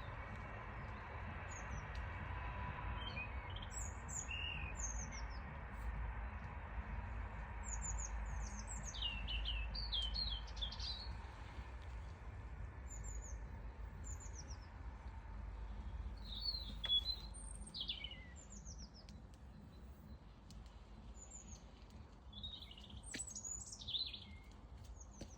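Small birds chirping: short, high, falling chirps, now single and now in quick clusters, over a steady low background rumble.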